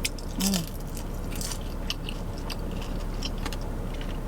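Close-up chewing and mouth smacks of someone eating soft breakfast food (egg, sausage and cheese), as scattered short wet clicks. There is a short closed-mouth "mm" about half a second in.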